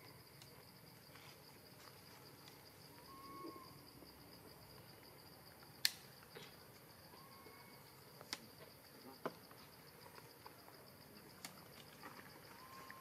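Faint, steady high-pitched insect trill in the forest, with a few sharp clicks, the loudest about six seconds in. Faint short whistled notes repeat every three or four seconds.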